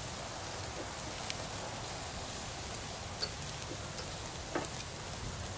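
Pork skewers sizzling over a charcoal grill: a steady hiss with a few scattered sharp crackles and pops from the coals.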